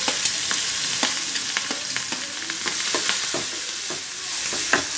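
Chopped onion and green chillies sizzling as they fry in hot oil in a pan, with repeated light clinks and scrapes of a steel spoon and plate against the pan as they are added and stirred.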